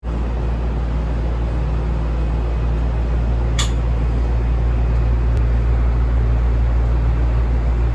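Steady low rumble of a Shonan Monorail 5000 series car heard from inside the passenger cabin, a rubber-tyred suspended monorail in motion. A brief sharp high click cuts in about three and a half seconds in.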